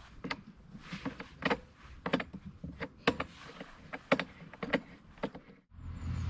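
Irregular plastic clicks and knocks from the handle of a Flymo Speedi-Mo 360C lawnmower as its red plastic locking knob is fitted and tightened. Near the end the clicking stops abruptly and a steady low rumble takes over.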